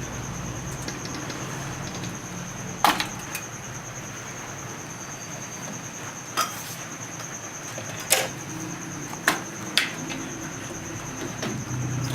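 Several sharp clicks and knocks of desktop computer parts being handled and set down during disassembly, about five spread over the span, over a steady high whine and low hum.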